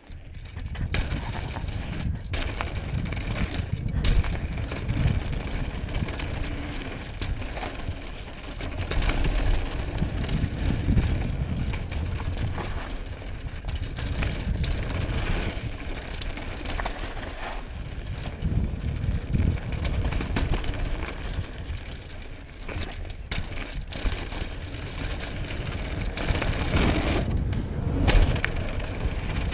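Downhill mountain bike ridden fast down a dirt trail without a chain: continuous tyre noise over the ground with irregular knocks and rattles from the bike as it hits bumps, over a heavy rushing of wind on the microphone.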